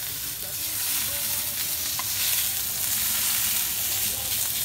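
Beef flank steaks sizzling steadily in a hot frying pan as they are turned with metal tongs, searing quickly on their second side.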